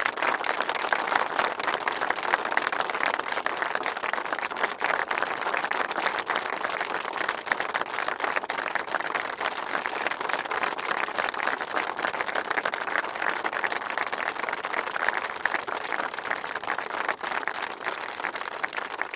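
Audience applause: dense clapping that starts abruptly and runs steadily, fading out near the end.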